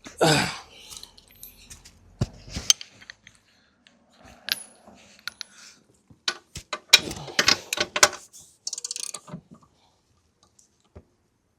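Metal hand tools clinking and clattering as wrenches and sockets are handled and fitted onto a motorcycle's rear axle nut, with scattered sharp clinks, some briefly ringing, and a quick run of clicks near the end.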